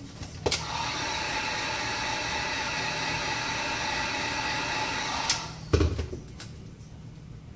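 A heat gun is switched on with a click and blows steadily with a whine for about five seconds, then is clicked off. A thump follows shortly after. The heat gun is used to soften the adhesive holding the iPad's glass.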